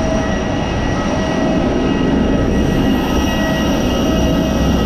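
Steady jet-airliner noise on the apron: a loud rushing rumble with a high, steady whine of several held tones.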